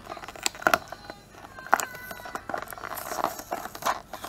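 Hard plastic toy parts clicking and rubbing as hands handle a Play-Doh Cinderella figurine and its skirt mold, with several sharp clicks.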